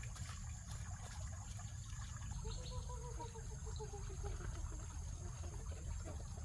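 Chickens at feeding, one giving a drawn-out, slightly falling call about two seconds in, over a steady high buzz of insects and a low rumble.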